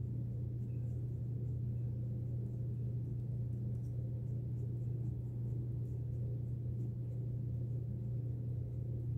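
A steady low hum, with faint scratching of an ink pen scribbling short strokes on paper.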